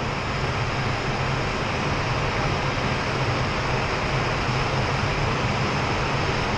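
Steady rush of airflow and engine noise inside an Airbus A320 cockpit on short final approach, with a constant low hum underneath.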